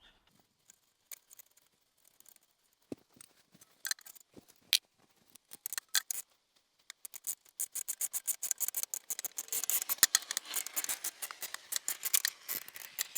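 A ratchet wrench clicking as the strut's bottom bolt is run in: a few scattered clicks and knocks at first, then a rapid run of ratchet clicks from about halfway through.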